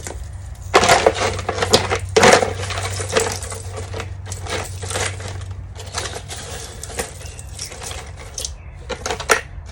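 Metal snow chains clinking and rattling as the links are handled and packed into their case. The jangling is loudest about one and two seconds in, with another clatter near the end, over a steady low hum.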